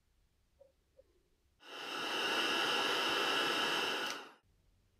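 Heat gun blowing for about two and a half seconds, a steady rush of hot air with a high whine from its fan, then switched off, shrinking heat-shrink tubing over the hall sensor wires.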